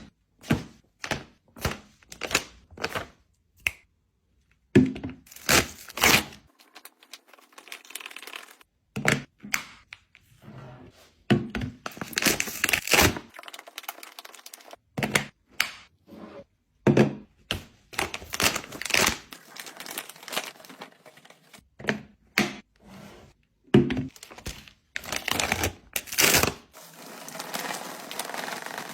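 Packaged food and drinks being set down and arranged on fridge shelves: irregular knocks and clicks of containers placed one after another, with stretches of plastic packaging crinkling.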